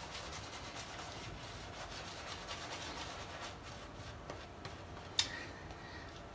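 Horse hair shaving brush scrubbing lather into a beard: a soft, steady rubbing. A single sharp click a little past five seconds in.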